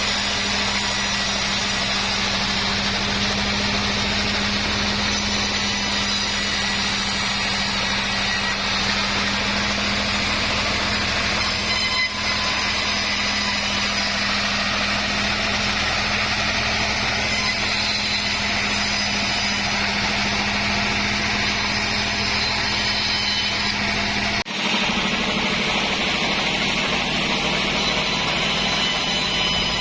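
Sawmill machinery running steadily: a constant mechanical drone with a steady low hum. The sound changes abruptly about 24 seconds in.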